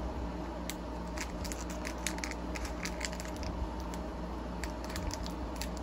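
Pokémon trading cards being handled: light, irregular clicks and taps over a steady low hum.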